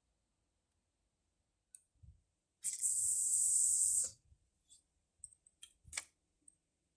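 Fishing line hissing off a spinning reel's spool during a cast for about a second and a half, with a few short clicks from the reel around it.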